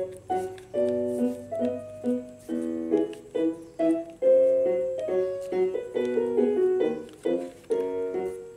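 Background music: a tune of short, quickly changing notes played on a keyboard.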